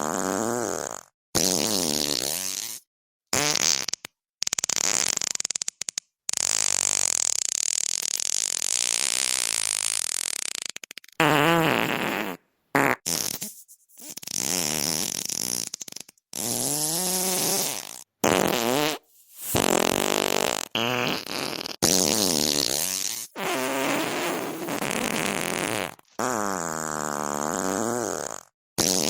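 A rapid string of about fifteen fart sound effects, each cut off by a short gap of dead silence. Most have a wavering, bending pitch; a long airy, hissing one runs for about four seconds a third of the way in.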